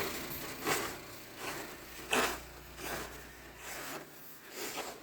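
Snow shovel scraping through snow in a run of about six short, uneven strokes.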